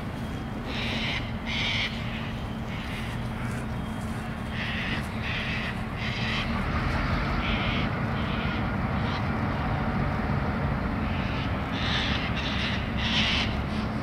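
Crows cawing in short groups of harsh calls, over the steady low drone of diesel locomotives approaching at a distance and growing slightly louder.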